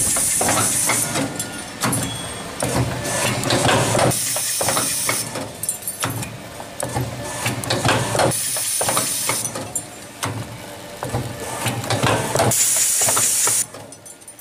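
Paint roller frame making machine running its automatic cycle. Its pneumatic cylinders let out a sharp hiss of air about every four seconds, with quick metallic clicks and clunks from the wire-feeding, bending and cutting tooling in between.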